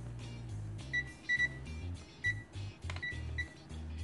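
RICHMETERS RM900A clamp multimeter in non-contact voltage mode giving about five short, irregular high-pitched beeps as it senses a live source, over background music with a repeating bass line.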